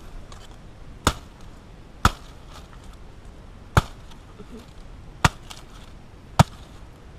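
A machete chopping through a ripe pineapple where the crown meets the fruit: five sharp chops at uneven intervals.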